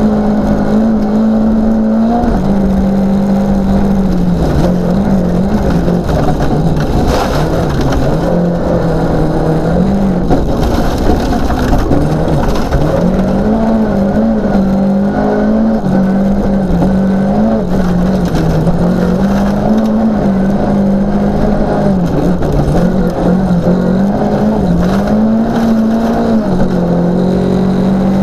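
Volvo 940 rally car's engine at hard throttle, heard from inside the stripped, caged cabin; the engine note rises and dips again and again as it is driven through the gears and lifted for bends. Under it a constant noise of tyres and gravel on a gravel road.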